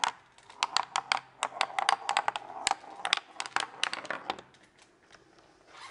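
A small ball bouncing down a board studded with metal beer bottle caps, a quick irregular run of light metallic clicks that dies away about four and a half seconds in.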